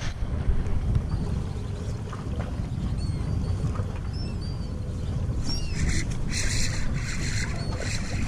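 Birds calling: short high chirps, then from about five and a half seconds in a run of louder, harsher repeated cries. Under them is a steady low rumble of wind and water.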